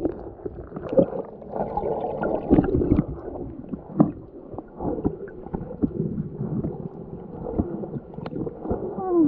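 Water sloshing and gurgling heard with the microphone underwater, dull and muffled, with irregular soft knocks scattered through.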